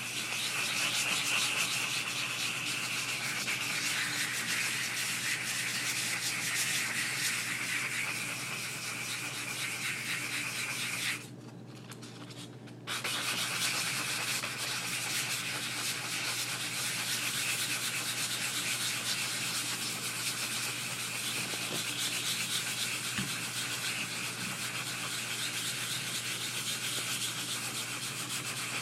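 Coarse 60-grit sandpaper rubbed by hand over the steel head of a double-bit axe, a steady rasping of quick back-and-forth strokes as the rust is sanded off. The sanding pauses for about two seconds partway through, then carries on.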